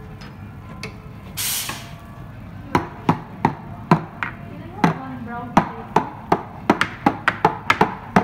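A short hiss about a second and a half in. Then, from a few seconds in, a stainless steel milk pitcher is knocked repeatedly on the counter, about two or three sharp knocks a second and quicker near the end, settling the steamed milk's foam before pouring.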